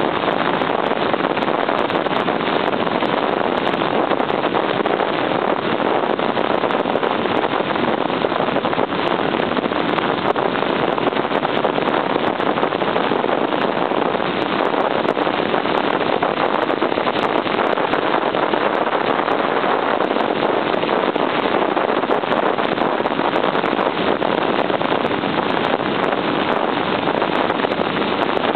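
Steady rush of wind over the microphone of a 1978 Honda CB750 cruising at an even speed, with its inline-four engine running underneath.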